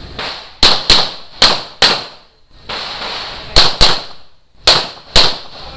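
Pistol shots fired in quick pairs, eight in all, each shot sharp and followed by a short echo.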